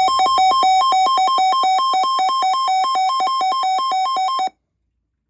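Electronic two-tone alert sound, rapidly switching back and forth between two notes several times a second. It cuts off abruptly about four and a half seconds in.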